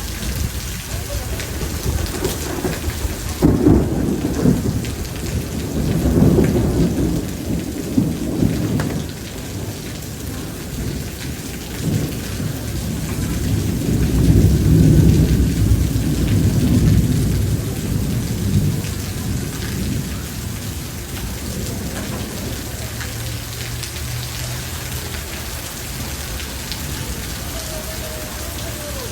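Rain falling steadily with thunder rumbling over it: a sudden clap about three and a half seconds in, more rolls over the next few seconds, and a long rumble swelling in the middle, then only the rain for the last ten seconds or so.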